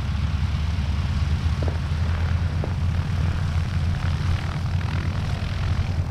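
Harvard trainers' Pratt & Whitney R-1340 Wasp radial engines running at low power on the ground, a steady low rumble.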